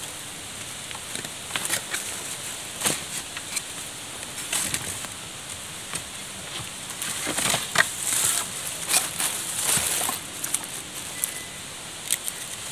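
Knife shaving and scraping green bamboo in short, irregular strokes, with sharp clicks and rasps between quieter moments.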